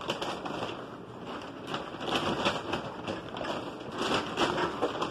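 Paper bag being handled, rustling and crinkling in a dense run of small crackles.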